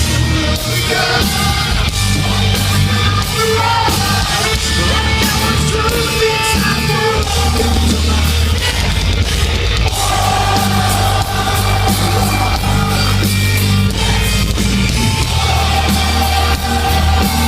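Heavy metal band playing live and loud, with distorted guitars, bass and drums, recorded from the audience on a phone.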